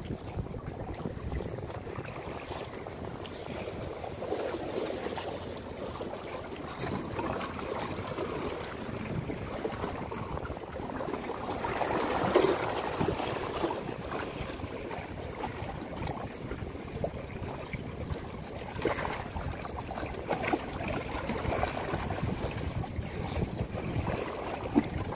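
Wind blowing across the microphone over sea waves lapping and splashing against the rocks of a breakwater, swelling a little louder about halfway through.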